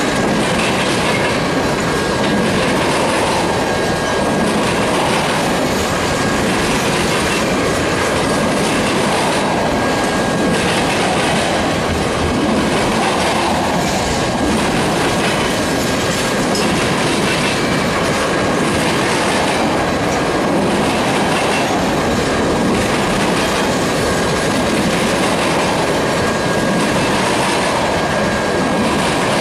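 Freight train tank cars rolling past close by: a steady rumble with the wheels clattering over the rail joints and crossing, and a thin high wheel squeal held faintly under the noise.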